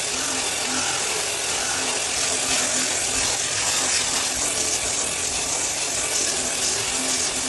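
Parquet floor sanding machine running with a steady, even hiss.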